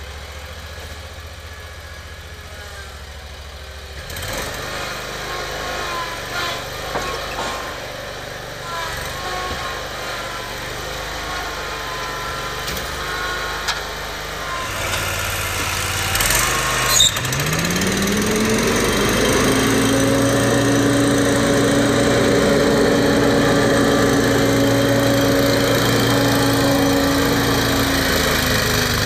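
Gravely zero-turn mower's engine running. About two-thirds of the way in there is a clunk, then a whine rises in pitch and holds steady as the mower deck and Protero bagger blower spin up.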